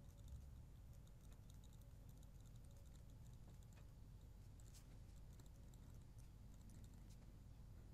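Near silence: a low steady room hum with faint scattered ticks of a stylus writing on a tablet screen.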